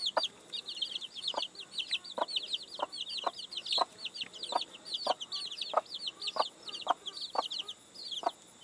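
A brood of young chicks peeping, a steady stream of rapid high chirps, several a second, while their mother hen gives short low clucks about every half second.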